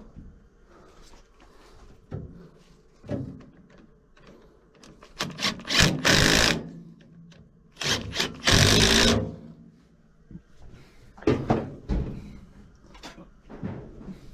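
Cordless drill/driver runs in two short bursts, about six and eight seconds in, the second one longer. Scattered knocks and clatter of tools being handled come before and after.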